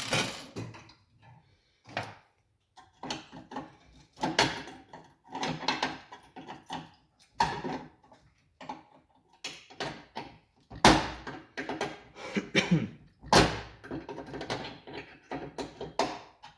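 Irregular clunks, clicks and knocks of tools and parts being handled in a workshop, with two louder sharp knocks in the last third.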